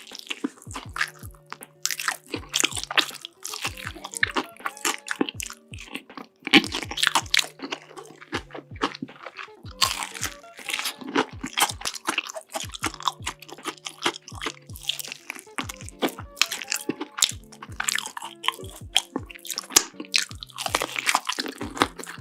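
Close-miked bites and chewing of crunchy food, loud crisp crunches coming several times a second, over soft background music.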